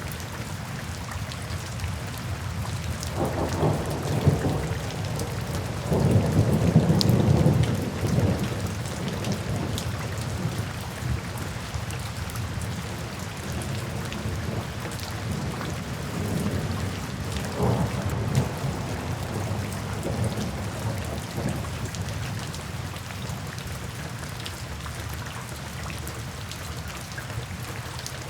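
Steady rain falling on puddles and standing water, with thunder rolling low twice: a longer, louder rumble a few seconds in and a weaker one past the middle.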